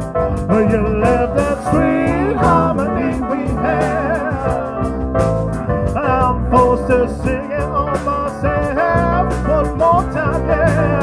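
Live band playing a song: drum kit keeping a steady beat under bass, guitar and a wavering lead melody line.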